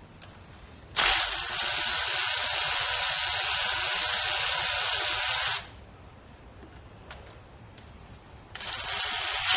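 Power drill running in two bursts, one of about four and a half seconds and a shorter one near the end, as it spins bolts on the gearbox.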